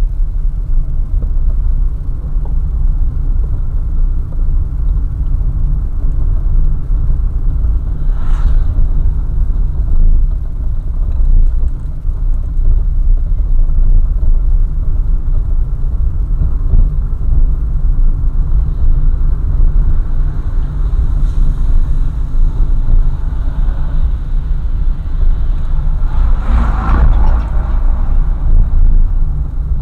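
A car driving along the road: a steady low rumble of engine and road noise, with a brief louder sound about eight seconds in and a stronger swell near the end.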